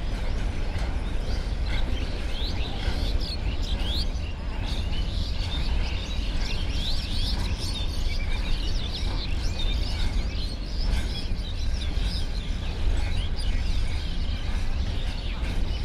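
Container freight train rolling slowly past with a steady low rumble, and many birds chirping over it.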